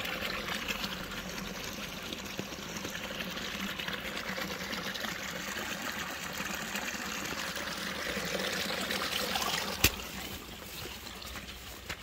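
Small rain-fed stream trickling steadily through grass, running again after it had dried up. The water sound drops away about ten seconds in, just after a single sharp click.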